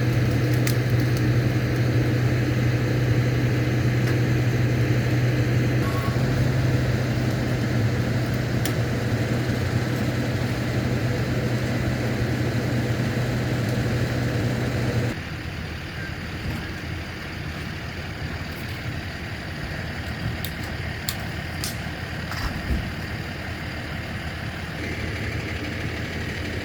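Bucket truck's engine running steadily at idle, then dropping to a quieter, lower hum about halfway through.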